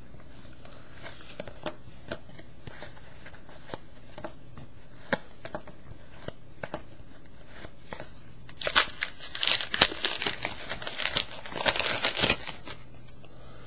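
Trading cards handled with faint scattered clicks, then about nine seconds in a card pack's wrapper is torn open and crinkled for a few seconds.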